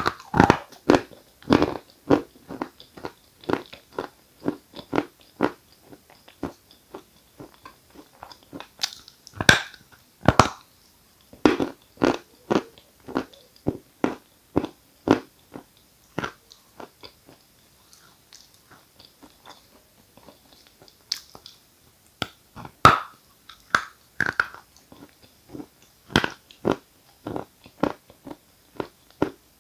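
Close-up crunching and chewing of a lump of dry 'Giant' edible chalk: sharp crunches at each bite, the loudest about ten seconds in and again past twenty, with softer chewing between them as the chalk breaks down in the mouth.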